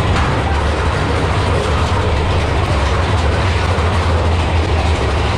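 Big Thunder Mountain Railroad's mine-train roller coaster cars running along the track, a steady, loud, deep rumble as heard from a seat on the train.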